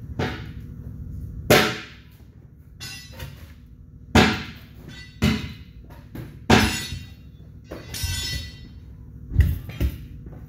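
Truck tyre being manhandled onto an aluminium truck wheel: a series of sharp knocks and thuds about every one to two seconds, with a short rattle about eight seconds in.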